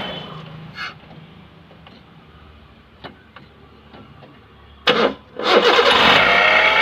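Hyundai Santro engine cranked and catching about five seconds in, then running with a loud grating rattle from the front of the engine, the sound of a failed power steering pump bearing. Before the start it is fairly quiet with a few faint clicks.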